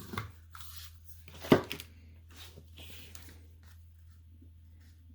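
Paper and ribbon being handled on a craft table: a few soft rustles and light knocks, the sharpest about a second and a half in, then quiet over a low steady hum.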